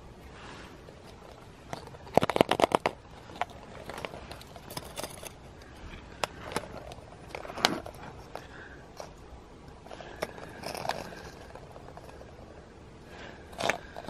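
Hollow plastic surprise eggs being handled and set down on asphalt: scattered clicks and scrapes, with a quick run of rattling clicks about two seconds in and a few sharper taps later.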